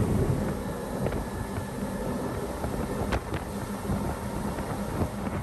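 Motorboat under way at speed: rushing engine and water noise, with wind buffeting the microphone.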